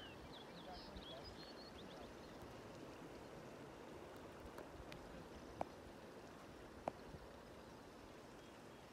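Faint steady outdoor background noise with a few quick, high bird chirps in the first second or so, and two soft clicks later on.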